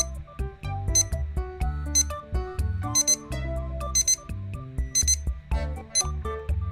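Short, high-pitched electronic alarm beeps about once a second, often in quick pairs, from the Casio DQL-250J alarm clock, over background instrumental music with a steady beat.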